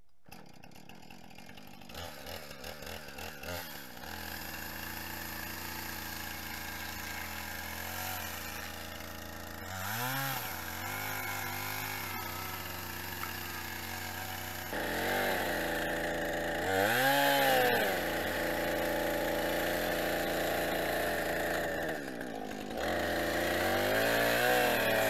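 Husqvarna 460 Rancher two-stroke chainsaw fitted with a Hud-Son debarker on the bar tip, idling and then revved up and down several times as it strips bark from a log, loudest about two-thirds through and near the end.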